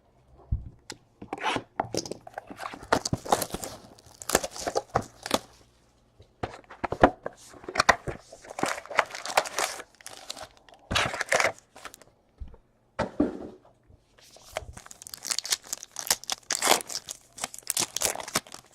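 Foil trading-card pack wrappers being torn open and crinkled by hand, in repeated spells of tearing and crackling with a few short pauses.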